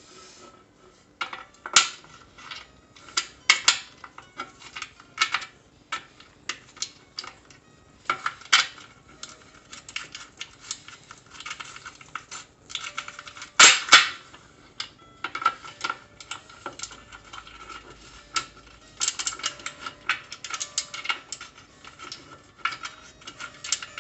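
Metal cookware and grill parts clicking and clanking as they are handled and fitted together: many irregular sharp knocks, the loudest a little past halfway.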